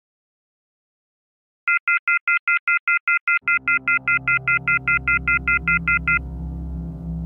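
Mobile phone call tone: a rapid run of short, even beeps, about five a second for some four seconds, the busy tone of a call that does not go through. A low ambient music drone comes in under the beeps about halfway and continues after they stop.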